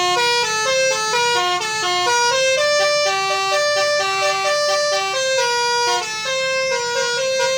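Indonesian 'telolet' multi-tone bus horn playing a tune: short notes stepping up and down, two or three sounding together, with longer held notes in the middle.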